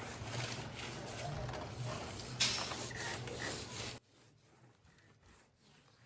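Rubbing, scrubbing noise of a wall being wiped clean, with one sharp knock about halfway through; it cuts off abruptly about four seconds in, leaving near silence.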